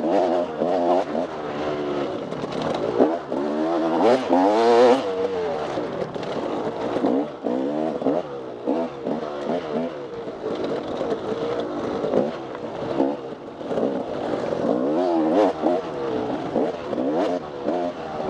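Off-road race motorcycle engine revving up and down again and again, with rapid rises and falls in pitch as the throttle is worked.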